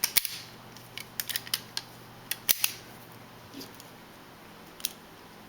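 Sharp metallic clicks and snaps from a Smith & Wesson Model 17 .22 revolver fitted with a ten-shot Model 617 cylinder, its action being worked: a loud cluster right at the start, a run of lighter clicks around a second in, another loud cluster about two and a half seconds in, and one more click near the end.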